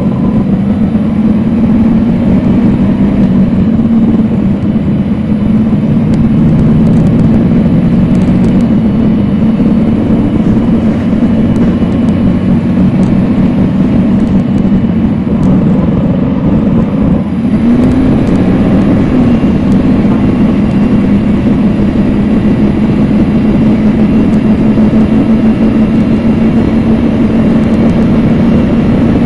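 Cummins ISL9 inline-six diesel of a NABI 40-foot suburban transit bus running steadily, heard from the rear of the cabin. About seventeen seconds in, the engine sound dips briefly and its pitch bends before it settles back to a steady drone.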